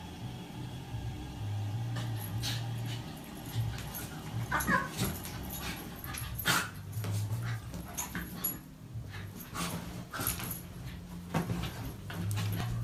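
A small dog and a cat play-fighting on a bed: scuffling and soft thumps, with a brief high dog whimper about five seconds in.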